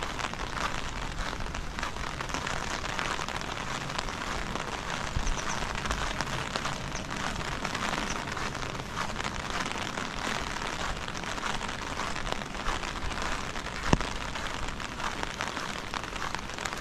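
Heavy rain falling steadily, a dense patter of drops on hard surfaces. A single sharp tap stands out a little before the end.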